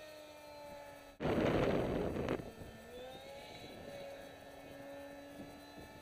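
Electric motor and 6x4 propeller of a radio-controlled Depron J20 jet flying overhead: a faint whine whose pitch drifts up and down with the throttle. About a second in comes a loud rush of wind buffeting the microphone, lasting about a second.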